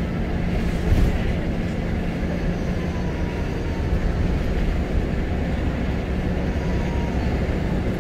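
Scania L94UB Wright Solar single-decker bus heard from inside the saloon while under way: the rear diesel engine gives a steady low drone over road noise. There is a single knock about a second in and a faint, slightly falling whine in the middle.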